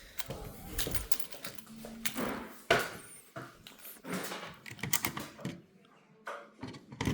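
Buttons on a fire alarm control panel being pressed and handled: a few irregular clicks and knocks, the sharpest a little under three seconds in.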